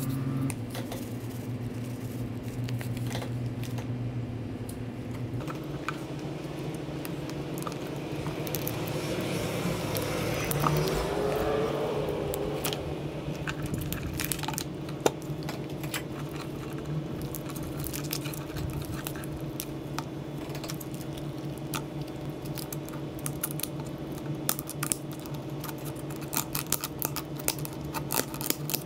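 Caribbean spiny lobster tail shells clicking and crackling as they are handled and twisted on a wooden cutting board, the sharp clicks coming thick through the second half, over a steady low hum.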